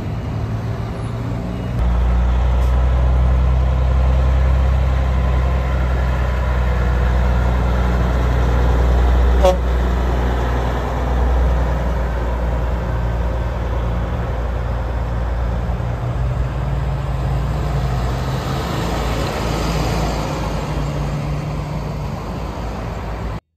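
Heavy diesel trucks running, a deep steady engine rumble that grows louder about two seconds in. There is a brief sharp sound about halfway through, and the rumble cuts off suddenly near the end.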